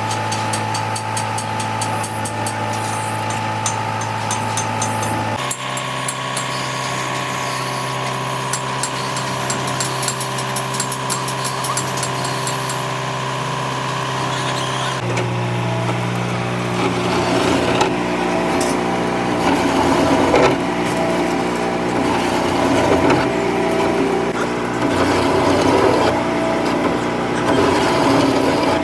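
A machine running with a steady low hum. The pitch shifts abruptly about five seconds in and again about fifteen seconds in. In the last part, irregular rough scraping sounds over the hum.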